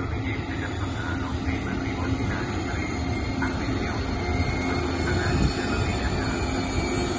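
Electric passenger train with a streamlined power car approaching along the track: a steady low rumble of wheels on rail with a steady electric hum, growing slightly louder as it nears.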